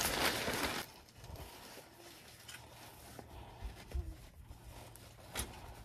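Canopy sidewall fabric rustling loudly as it is handled for just under a second. Then a few light clicks and taps as a cord with a metal carabiner clip is handled.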